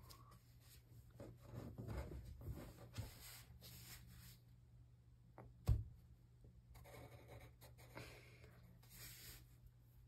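Graphite pencil scratching on paper as words are circled on a worksheet, in short strokes with a pause in the middle. A single sharp knock a little past halfway is the loudest sound.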